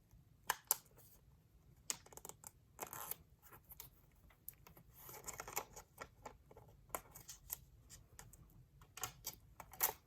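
Close-up crafting sounds of packing tape and a small paper notebook being handled: irregular light clicks, taps and brief crinkling rustles as the tape is folded, pressed and trimmed around the cover.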